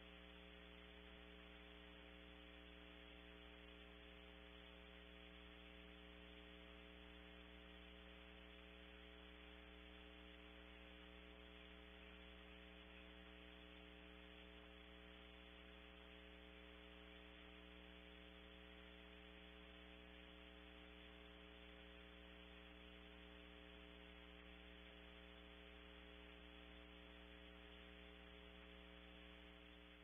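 Near silence: a steady electrical hum with faint hiss on the audio line, unchanging throughout.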